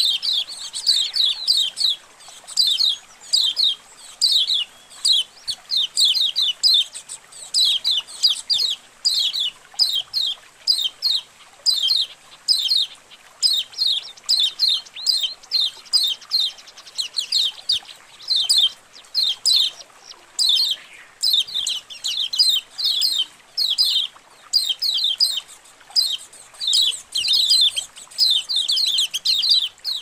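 A colony of kecial kuning white-eyes chirping together: rapid, high, short chirps in quick clusters with brief pauses, many birds overlapping.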